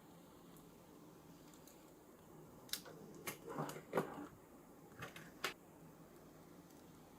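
A few sharp clicks and a short rustle from plastic packaging and figure parts being handled during unboxing, bunched between about three and five and a half seconds in.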